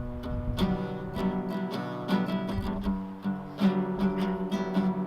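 Acoustic guitar strumming chords in a steady rhythm, without singing.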